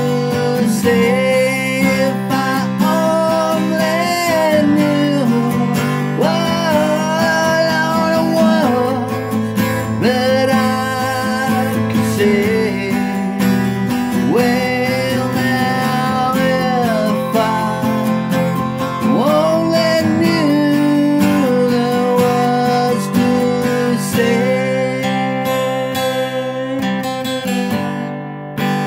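Acoustic guitar strummed in a slow ballad, with a man's voice singing long held notes over it.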